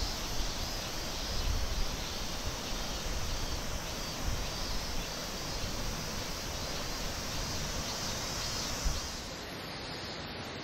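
Outdoor forest ambience: a steady rushing hiss of wind in the trees and a river just below, with gusts buffeting the microphone and a high, even drone above it. About nine seconds in it changes to a softer, even rush of running water.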